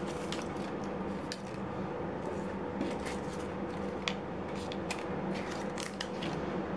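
Dried bay leaves crinkling and lightly tapping against a frying pan as they are dropped in among garlic cloves and olives: a scattering of small, faint clicks over a steady background hum.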